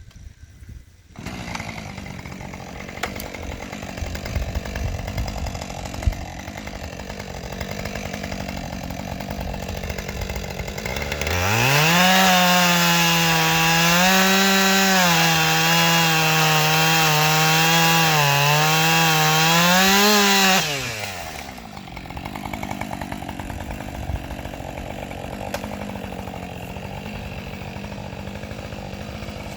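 Husqvarna 545 Mark II two-stroke chainsaw idling, then revved to full throttle for about nine seconds, its pitch dipping and recovering as the chain cuts into dead ash wood, then dropping back to idle.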